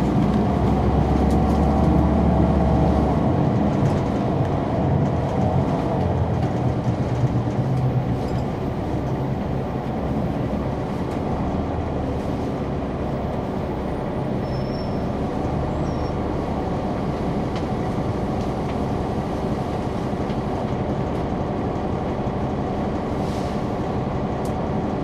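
The Caterpillar C9 ACERT diesel engine of a 2004 Neoplan AN459 articulated bus running, heard from a rear seat inside the bus. Its deep drone is strongest in the first few seconds and settles a little quieter from about nine seconds in.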